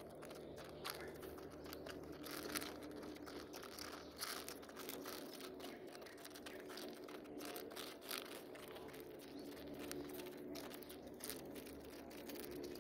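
Pigeons pecking pellet feed from a plastic dish: quick, irregular clicks and rattles of beaks striking pellets and the dish, over a low steady hum.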